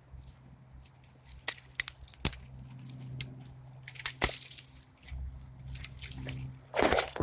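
Dry, burnt twigs and brush crunching and snapping as sticks are gathered by hand, with several sharp cracks and a louder rustle near the end. A faint steady low hum runs underneath.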